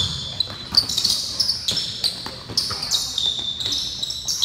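A basketball bouncing on a gym floor during play, with sneakers squeaking on the court. Several sharp knocks stand out, the loudest about a second in.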